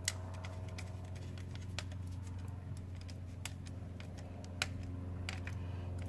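Scattered light clicks and taps of a 240 V receptacle being handled and its ground terminal screw tightened down on the wire, over a steady low hum. The sharpest clicks come at the very start and about two-thirds of the way through.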